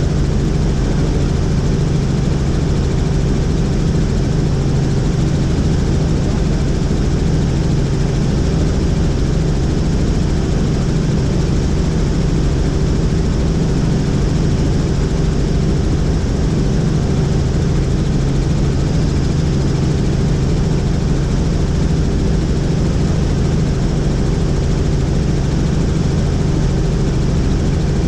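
Helicopter in cruising flight: steady engine and rotor noise with a constant low hum, unchanging throughout.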